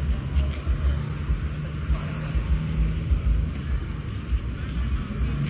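A motor vehicle running close by over a low, uneven rumble of street traffic.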